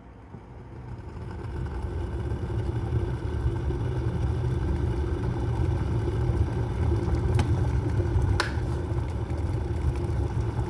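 Electric kettle switched back on to reheat water that is just short of the boil. A low rumble builds over the first couple of seconds and then holds steady, with two light clicks about three quarters of the way through.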